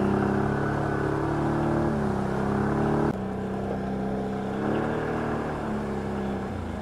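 Can-Am ATV's V-twin engine running under throttle. Its note holds fairly steady, drops suddenly about three seconds in, picks up briefly near five seconds and eases off again near the end.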